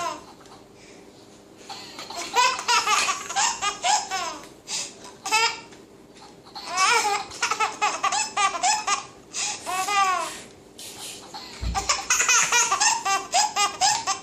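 A baby laughing: belly laughs come in about five fits, each a second or two long, with short pauses between them.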